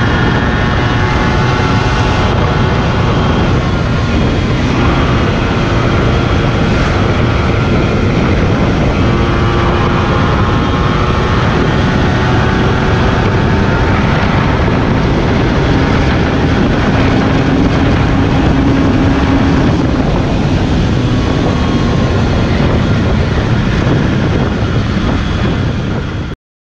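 Yamaha motorcycle's engine and exhaust running hard at road speed, the engine note rising and then dropping back several times as it shifts gears, over wind and road rush. Cuts off suddenly near the end.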